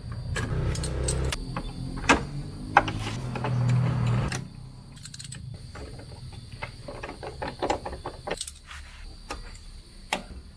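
Small metallic clicks and clinks of a hand tool working the screws of a Toyota AE86's door striker plate, as the striker is taken off to fit a door stabilizer. A low rumble runs under the first four seconds or so and then stops.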